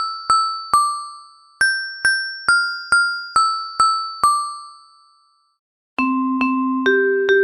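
Background music: a tinkling, bell-like tune of evenly spaced struck notes, about two a second, playing a falling phrase twice before it stops. After a short silence a lower tune with longer held notes starts near the end.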